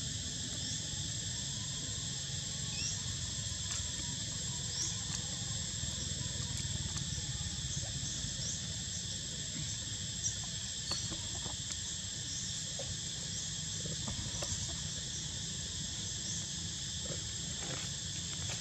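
Steady chorus of insects, a constant high drone with a few faint short chirps and ticks over it, above a low background rumble.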